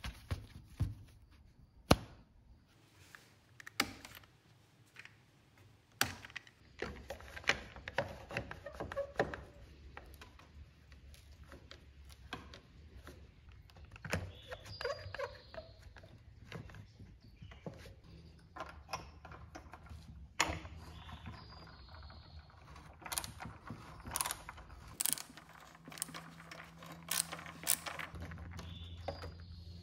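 Workshop handling noises: irregular clicks, knocks and clunks of tools and chair parts being worked on by hand. A low steady hum runs underneath from about seven seconds in and grows stronger near the end.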